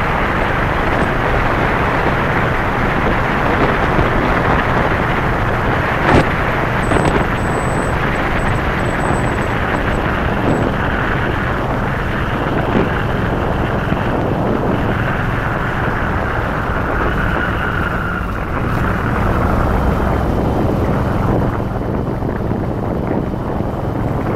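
Yamaha Virago XV1100's air-cooled V-twin engine running steadily at speed, under loud wind noise on the microphone. One sharp tap about six seconds in.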